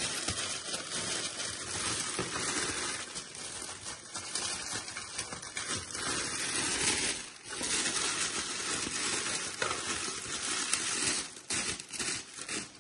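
Clear cellophane wrap crinkling continuously as it is gathered and bunched up by hand, with a short pause about seven seconds in and a few brief breaks near the end.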